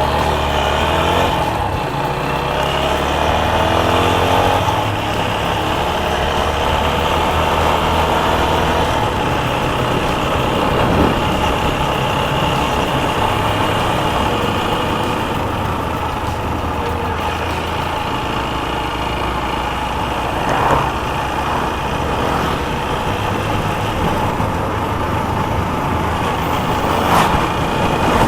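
TVS Apache RTR 160 4V single-cylinder motorcycle engine running while riding, with rushing noise from the ride. Its pitch rises in the first few seconds as it accelerates, then holds steady.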